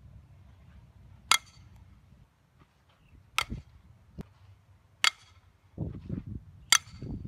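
Softball bat striking a softball four times, about every second and a half to two seconds; each hit is a sharp crack with a brief ringing ping.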